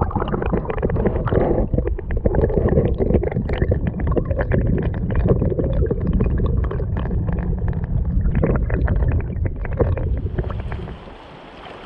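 River current heard from underwater through a submerged camera: a loud low rumble with dense crackling and clicking. It drops abruptly to a softer rush of water near the end.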